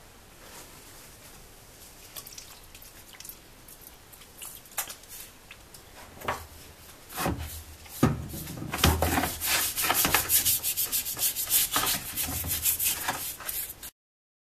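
Paintbrush scrubbing a diesel-soaked motorcycle exhaust silencer: quick rubbing strokes, faint at first, then rapid and louder from about halfway, stopping abruptly near the end.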